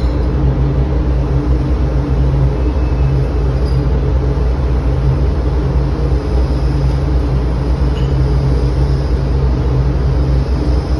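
Large 17x40 engine lathe running, a steady, loud low hum that holds even throughout.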